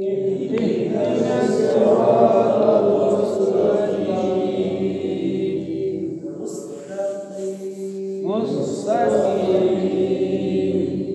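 Voices chanting, holding long sung notes, with a new phrase starting on rising slides about eight seconds in.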